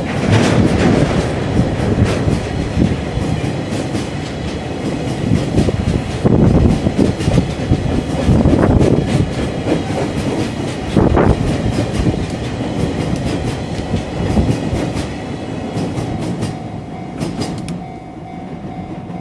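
Empty oil tank wagons of a freight train rolling past, their wheels clattering over the rail joints. Near the end the sound eases as the tail of the train goes by.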